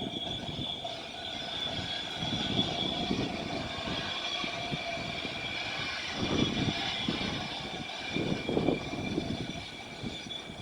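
Eerie outdoor droning: several steady, whine-like high tones held over a wavering low rumble that swells twice in the second half. This is the kind of sound people post as 'strange sky sounds', described here as very unnerving.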